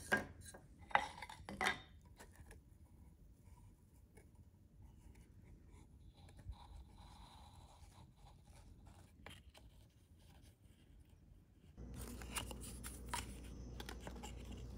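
Wooden camera frame parts and a cardboard template being handled and fitted together on a workbench. A few sharp knocks in the first two seconds, then faint scrapes and rubs. A low steady hum comes in about twelve seconds in.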